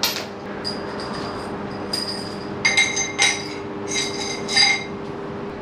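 Several light metallic clinks, most of them in the second half, each leaving a short high ring: a chrome front-fork inner tube and its fittings knocking against other metal as they are handled. A steady low hum runs underneath.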